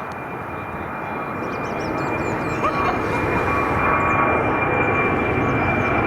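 Jet airliner's engines at takeoff power, a rumble that grows steadily louder as the aircraft comes closer, with a steady high-pitched whine above it.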